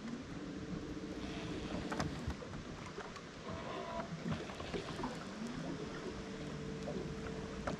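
Bow-mount electric trolling motor whining. Its pitch rises as it speeds up, holds, then falls away, twice.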